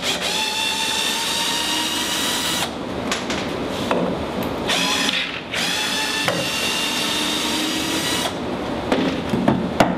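Cordless drill running in reverse in three runs with short pauses between, backing wood screws out of a workpiece, followed by a few sharp clicks near the end.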